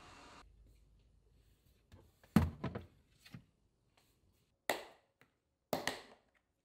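Hard plastic knocking and clicking as a Greek-yogurt strainer's bowl and lid are handled: one heavier thump about a third of the way in, a few smaller knocks after it, and a pair of sharp clicks near the end.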